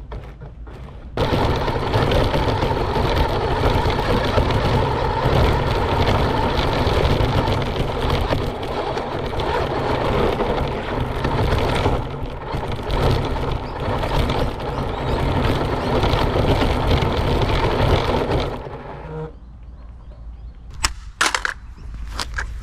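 RC car driving hard over grass and dirt, its motor and drivetrain running under a loud, dense rush of tyre and body noise. The noise starts about a second in, dies away with about four seconds left, and a few sharp knocks follow near the end.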